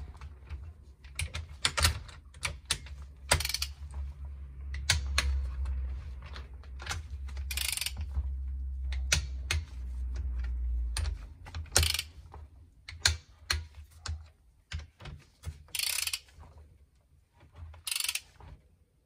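Torque wrench ratcheting as the cylinder head nuts are tightened: runs of quick clicks and short rasps of the ratchet as the handle is swung back and forth.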